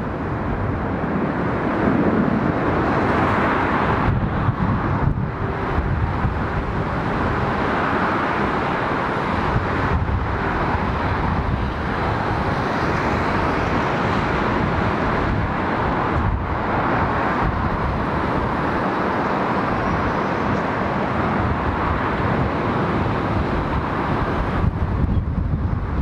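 Airbus A380's four jet engines at high go-around power as the aircraft climbs away overhead, a steady loud noise. Gale-force wind buffets the microphone with uneven low rumbles.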